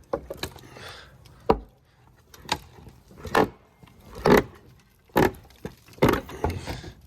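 Old wooden porch boards being torn down: a series of wooden cracks and knocks, roughly one a second, some drawn out into short splintering cracks.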